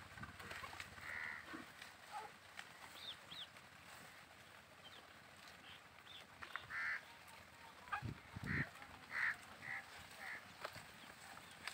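A run of short, honking animal calls, most of them in the second half, with a few faint high bird chirps earlier. Low thumps sound about eight seconds in.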